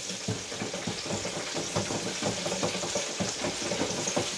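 Battered food sizzling and crackling in hot oil in an electric deep fryer: a steady hiss with many small irregular pops.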